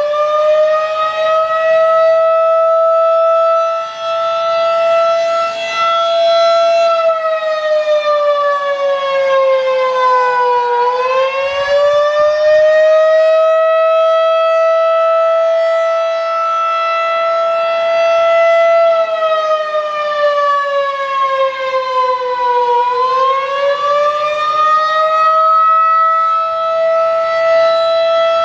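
Federal Signal 2001-DC outdoor warning siren sounding a wail: a loud, held high tone that twice sinks in pitch and climbs back up, once about a third of the way in and again near three-quarters through.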